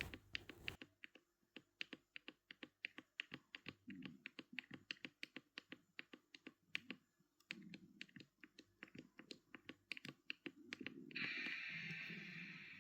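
A MacBook power button pressed over and over, giving rapid, faint clicks, about five a second. This is the repeated pressing offered as the fix for a MacBook that won't charge. A hiss starts about eleven seconds in and fades away.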